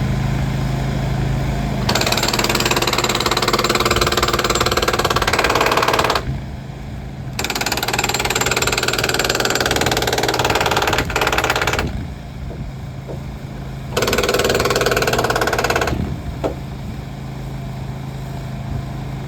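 Powered track-repair equipment working over an engine running steadily: three long bursts of rapid, loud hammering, each a few seconds long, with short pauses between them.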